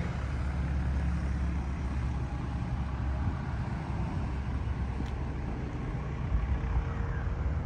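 Steady low engine rumble. Its hum is strongest for the first three seconds or so, then weakens into a rougher low noise.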